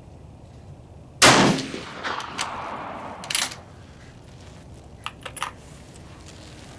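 A single rifle shot from a Gruning Precision rifle about a second in, its report dying away over the next two seconds. A shorter sharp burst follows, then a few light clicks near the end.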